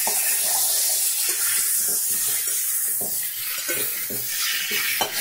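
Cauliflower and potatoes sizzling in hot mustard oil in a kadai, with a metal slotted spatula scraping and turning them in irregular strokes, at the stage of frying the just-added ginger-garlic paste.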